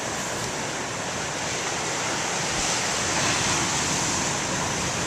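Ocean surf from large waves breaking, a steady rush of water that swells slightly about three seconds in.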